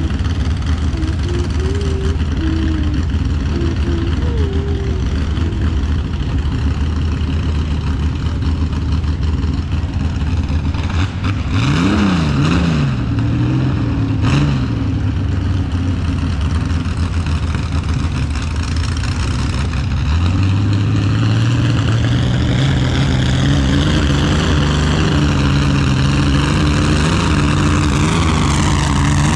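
Mini rod pulling tractor's engine running, revved in two quick blips near the middle, then climbing steadily in pitch over the last third as it is brought up under power.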